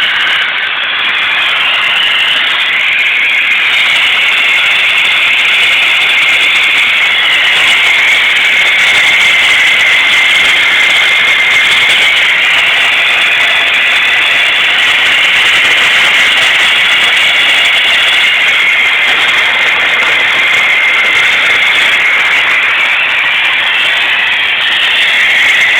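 GM 2.5L Tech 4 (Iron Duke) four-cylinder in a 1991 Chevy S10 pickup idling rough, with a miss. The running is loud and steady, with little bass.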